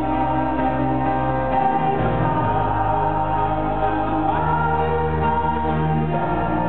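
Live song: a male lead voice singing with a small male vocal group in close harmony, over held chords that shift every second or two. About four seconds in, one voice slides up into a higher note.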